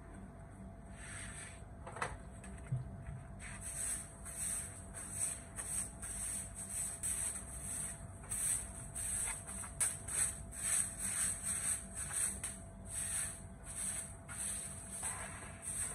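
Sweeping concrete with a short-handled bundle broom of stiff stalks: brisk, scratchy swishes, about two strokes a second, starting a few seconds in.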